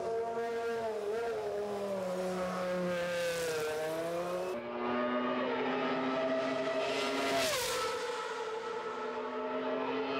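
Williams FW16 Formula One car's Renault V10 engine at high revs, its pitch rising and falling as it accelerates. Near the middle, the pitch drops sharply at an upshift, then climbs steadily again.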